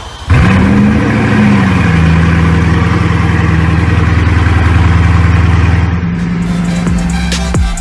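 Bugatti Chiron's quad-turbo W16 engine starting: it catches about a third of a second in and flares up in revs for about a second, then settles into a steady idle.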